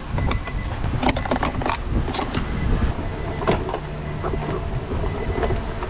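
Irregular clicks and knocks of hand work on a car, over a steady low rumble.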